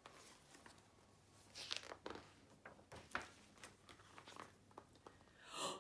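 Faint rustling and scattered light clicks of a hardback picture book's pages being turned and handled.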